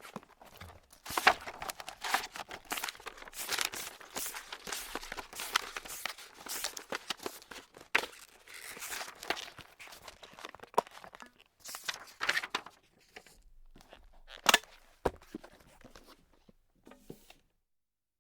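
Paper being crumpled and crinkled by hand in continuous, dense crackling with sharp snaps, in bursts that grow sparse and stop near the end.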